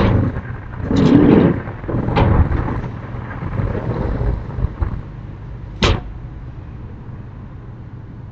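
Irregular knocks and thuds of domestic banging over a steady low hum: a heavier thud about a second in, a sharper knock near two seconds, and a single sharp clack near six seconds.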